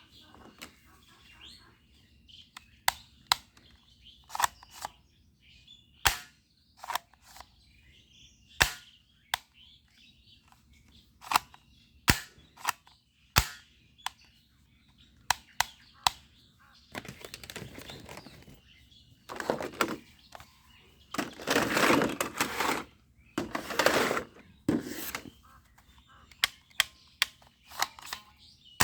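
Toy bead-shooting guns being fired and handled: a string of sharp, irregular snaps, one every second or so, with several longer, louder noisy stretches of about a second each in the second half.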